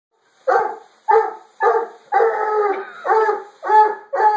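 Black and tan coonhound barking: about seven loud barks, roughly two a second, with one drawn out longer near the middle.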